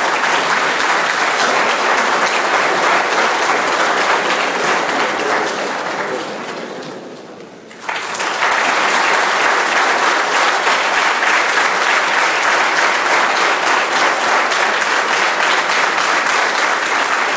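An audience applauding. The clapping dies down a little past the middle, then breaks out again suddenly and loudly and keeps going.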